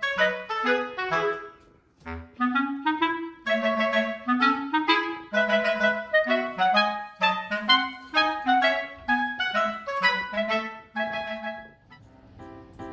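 Background music: a light melody played in short, separate notes, with a brief pause about two seconds in, tailing off near the end.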